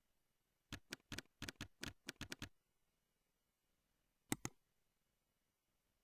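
Faint computer keyboard typing: about a dozen quick keystrokes over two seconds as a short title is typed. A single mouse click follows about four seconds in.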